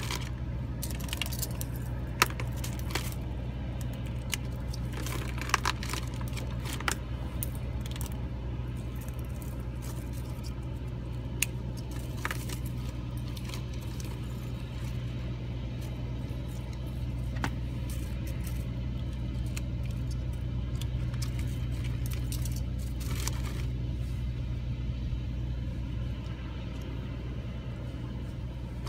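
Small clicks, taps and rustles of fishing tackle and plastic bags being handled at an open tackle box, scattered irregularly, over a steady low hum.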